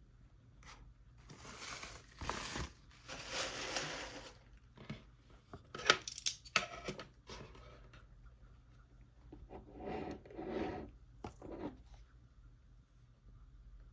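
Packaging being handled and unwrapped: stretches of rustling and tearing, with a cluster of sharp clicks in the middle.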